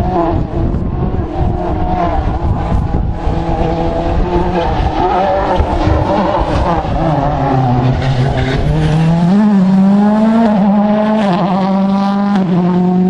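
A rally car passing at speed on a wet stage, its engine revving hard, the pitch dropping and climbing again with gear changes.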